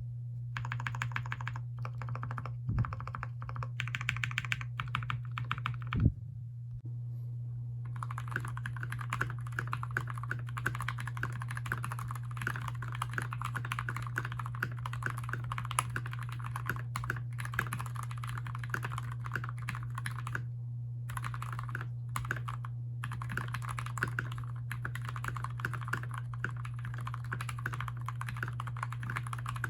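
Fast continuous typing on a Keychron K6 mechanical keyboard with 205g0-lubed switches: a dense run of keystroke clacks. About six seconds in there is one louder clack, then a pause of a second or so before the typing starts again. A steady low hum runs underneath.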